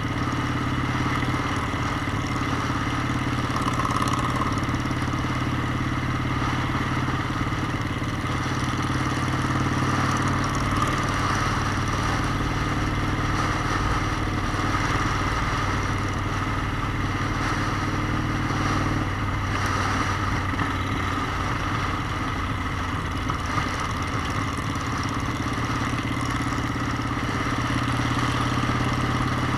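Motorcycle engine running steadily while riding, with a steady rushing noise over it; the engine note changes about 19 seconds in.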